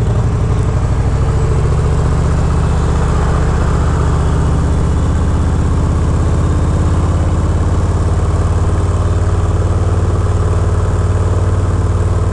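Harley-Davidson Fat Bob 114's Milwaukee-Eight 114 V-twin engine running steadily at low revs as the bike pulls away from a stop and rolls slowly through traffic.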